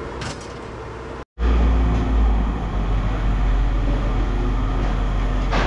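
A steady low rumble, like a nearby engine running, starts abruptly about a second in after a brief dropout. A short knock comes near the end.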